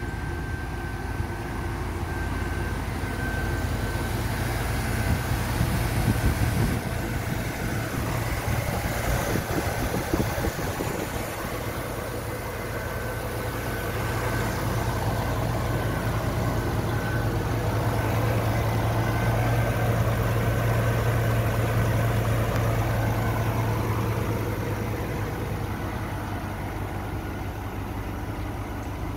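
2014 GMC Sierra 2500 HD's V8 engine idling steadily with the hood open, a constant low hum.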